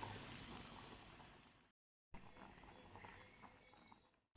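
Faint hiss fading away, then a brief dead-silent gap at an edit. After it, a cricket chirps faintly in a steady high-pitched pulse, about three chirps a second.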